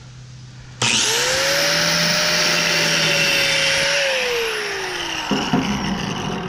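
Electric power tool motor starts abruptly about a second in, spins up to a steady whine, then winds down from about four seconds in. Scattered knocks and rattles follow near the end.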